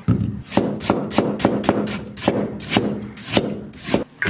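Cleaver slicing fresh ginger on a thick wooden chopping block: a steady run of sharp knocks, about three or four a second, stopping just before the end.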